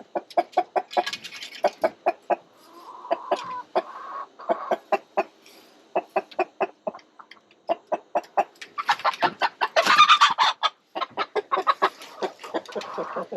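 Chickens clucking in short repeated notes, about four a second, rising to a louder stretch of agitated calling about nine to eleven seconds in: roosting hens disturbed at night while one is held to have a leg band put on.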